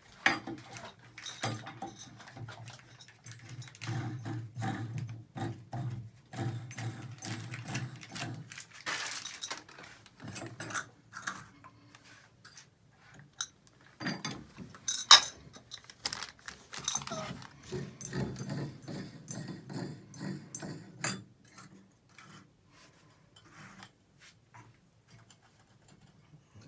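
Chrome trim parts of a three-handle tub and shower valve clinking and clicking as they are handled and fitted onto the valve stems: irregular sharp metal taps, one louder click about halfway through.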